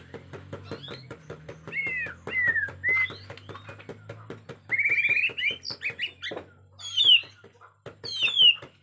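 A Bornean shama (murai batu Borneo) singing agitatedly in short whistled phrases that slide up and down, louder and quicker from about halfway through, over a steady run of rapid clicks, about six a second.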